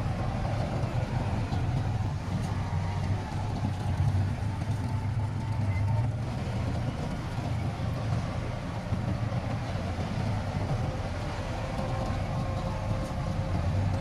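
Heavy diesel engine of earthmoving equipment running steadily: a low drone with a faint higher whine that comes and goes.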